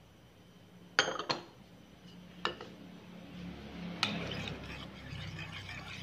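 A metal spoon clinks against a ceramic bowl a few separate times. From about four seconds in it stirs and scrapes around the bowl, mixing a thin liquid dressing of fish sauce, lime juice, chilli and pickled garlic.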